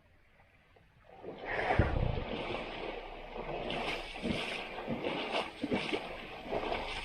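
Asian elephants sloshing and splashing in muddy river water, an uneven run of splashes and gurgles that begins about a second in after a moment of near silence.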